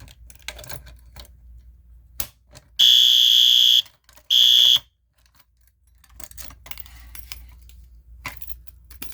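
Fire alarm horn sounding two loud blasts of a high steady tone, about a second and then half a second long, each cutting off abruptly: set off by pulling a fire alarm pull station. Light clicks and handling knocks before and after.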